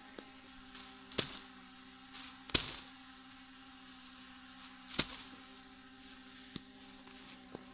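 A machete chopping branches: about five sharp separate chops spread over several seconds, the one about two and a half seconds in the loudest. A steady buzzing hum runs underneath.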